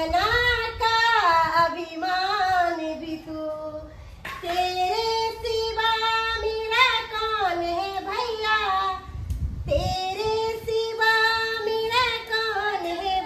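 A high-pitched female voice singing a melodic song in three long phrases of held, wavering notes, with short breaks about four seconds in and near the ten-second mark.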